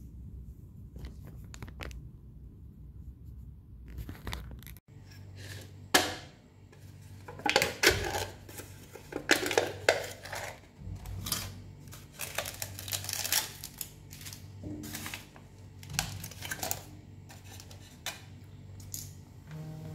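Packaging of a cup of instant noodles being torn open and its foil lid peeled back: a run of crinkling, tearing bursts over a steady low hum.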